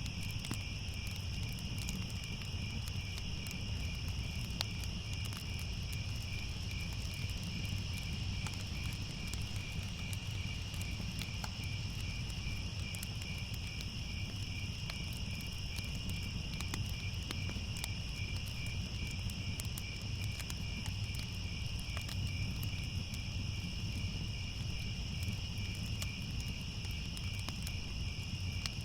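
A steady chorus of crickets trilling in quick, even pulses, over a low rumble and faint scattered crackles of a fire.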